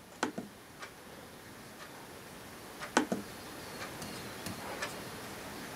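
Computer mouse clicking a few times while choosing from a drop-down list, with one sharper double click about three seconds in, over a faint steady hiss.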